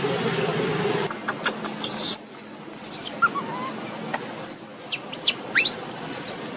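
A steady low hum that cuts off about a second in, then a scatter of short, high-pitched animal chirps and squeaky whistles that sweep up and down in pitch.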